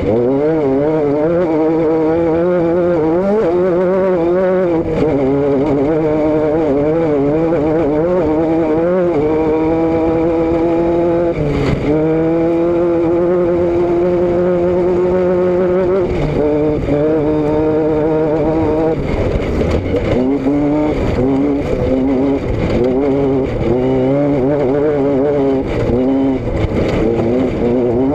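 Vehicle engine and exhaust running loud under way, its pitch wavering and rising and falling with the revs. Twice, about nine and twelve seconds in, the pitch drops suddenly and then climbs steadily again.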